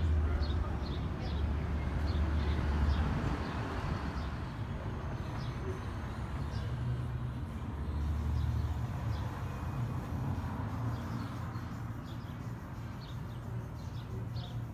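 Small birds chirping in short, repeated high notes over a steady low rumble of outdoor background noise.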